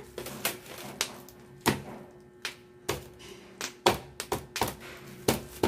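Hard plastic parts of a multi-tier storage rack knocking and clicking against each other as its perforated basket tiers are handled and fitted together: a string of about a dozen irregular sharp taps.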